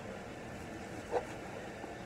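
Knife cutting cooked chicken on a plastic cutting board: one short knock of the blade on the board about a second in, over a steady background hum.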